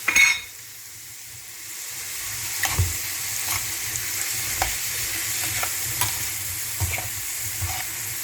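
Calamari frying and sizzling in a pan with onions, with a utensil clicking and scraping against the pan as it is stirred. The sizzling grows louder over the first couple of seconds, then holds steady.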